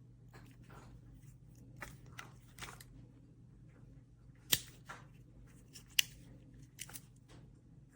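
Small handling sounds: scattered rustles and light clicks, with two sharper clicks about four and a half and six seconds in, over a steady low hum.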